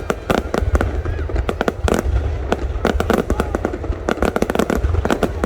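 Aerial fireworks going off in a rapid, unbroken barrage of sharp bangs and crackles, many a second.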